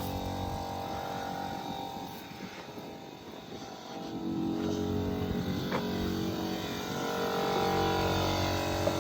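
Deutz diesel engine of a Merlo telehandler running steadily; it drops back for a moment about two seconds in and picks up louder again from about four seconds in.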